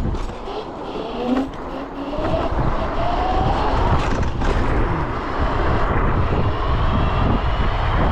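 Electric scooter being ridden at speed: wind rumbling on the microphone, with a motor whine that rises in pitch as it speeds up, once over the first few seconds and again near the end.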